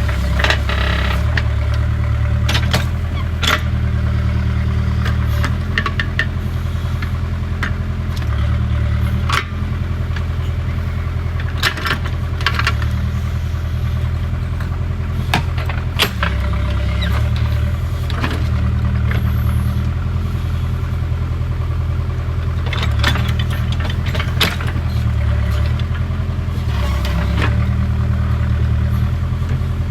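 Backhoe loader's diesel engine running steadily, its note dropping and lifting every few seconds as the machine is worked. Sharp clanks ring out now and then, several close together about 3 seconds in and again around 23 to 25 seconds in.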